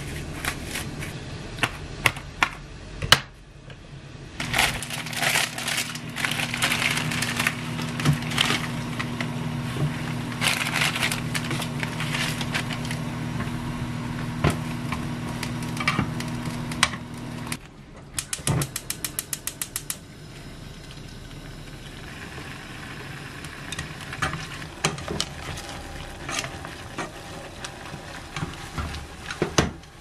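Kitchen cooking sounds: crinkling and clinks at first, then a steady hum for about thirteen seconds. About eighteen seconds in, a gas stove igniter ticks rapidly for about two seconds, after which a quieter steady sound runs on with wooden chopsticks knocking in a pot.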